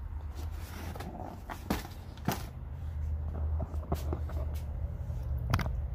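Handling noise of things on a workbench: a few scattered knocks and clicks over a steady low hum.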